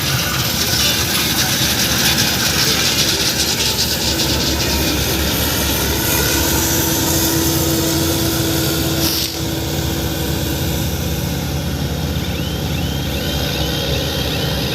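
John Deere W70 combine harvester running steadily at work in wheat, a loud dense mechanical drone. Near the end a quick series of short high squeaks repeats over it.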